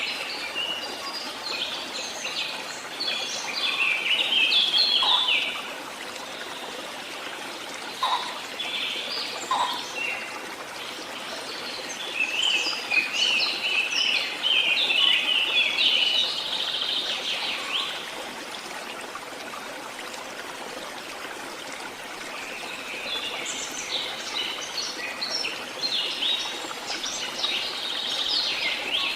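Songbirds singing in bouts of rapid, twittering chirps, loudest in three stretches, over a steady background hiss.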